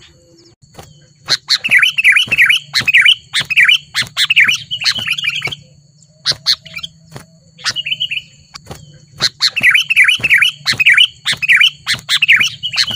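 Sooty-headed bulbuls calling in loud bursts of rapid, chattering notes: one long bout of about four seconds, a few short phrases, then a second long bout near the end.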